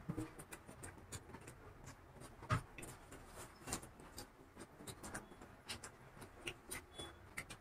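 Soft eating sounds: scattered faint clicks and ticks from chewing and from hands tearing and handling vada pav, with one louder tap about two and a half seconds in.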